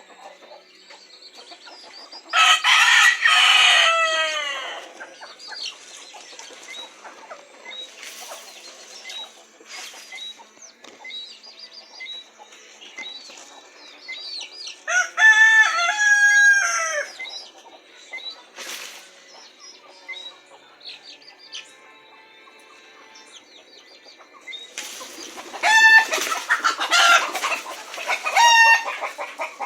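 Domestic chickens calling as they settle to roost: roosters crowing loudly about two and a half seconds in and again around the middle, then a run of short repeated calls near the end, with faint chirps and clucks between.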